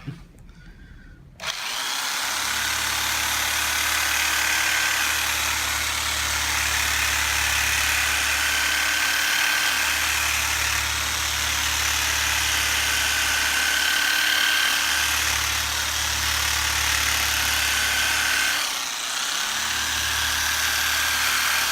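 Makita drill used as a massager for soft-tissue work on the back, starting about a second and a half in and running steadily with a low hum, with a short break near the end.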